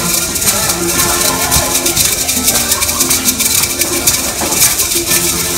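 Several wooden maracas shaken in a fast, continuous rattle over upbeat music with steady held notes.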